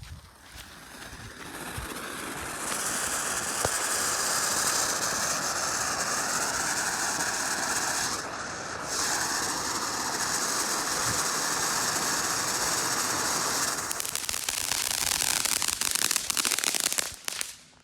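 A small fountain-type firework spraying sparks with a steady, loud hiss and crackle. It builds up in the first few seconds, dips briefly about halfway through, then dies out near the end.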